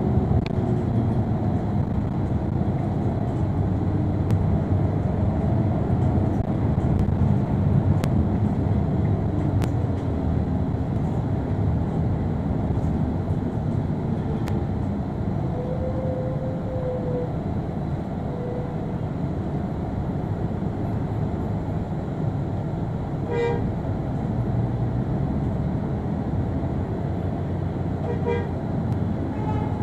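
Transjakarta city bus in motion, heard from inside the cabin: a steady engine and road rumble. A horn toots about halfway through, and two more short honks come later.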